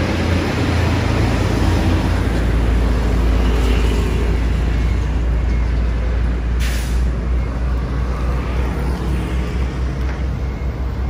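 Road traffic with a bus passing close by: a deep, steady rumble, and a short hiss about two-thirds of the way through.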